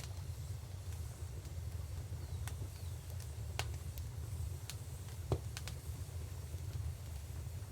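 Wood fire crackling, with sharp pops at irregular moments roughly once a second, over a steady low rumble.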